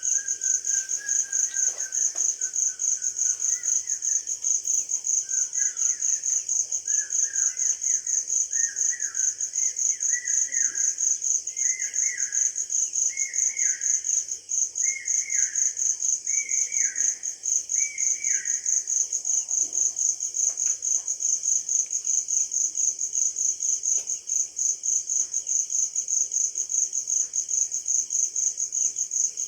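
A steady, rapidly pulsing high-pitched trill of an insect such as a cricket. Over it a bird repeats a short hooked call about once a second for the first two-thirds, the notes climbing slightly in pitch before it falls silent.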